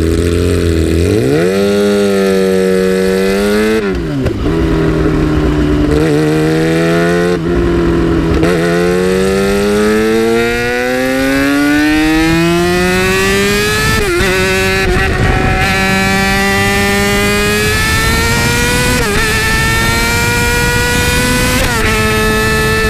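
2008 Yamaha R6's inline-four engine through an Akrapovic exhaust, accelerating up through the gears. The revs climb and drop back sharply at each upshift, about four and eight seconds in. The longest pull runs to about fourteen seconds in, after which it mostly holds steady at speed, with wind rushing on the microphone.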